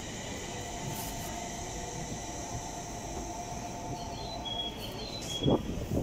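E721-series electric train creeping into the platform and stopping, with a steady electric whine from its motors and brakes and a brief knock near the end.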